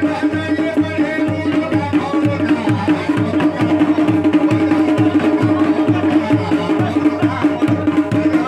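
Kumaoni folk music with a drum beat about twice a second over a steady held tone, with a melody above it.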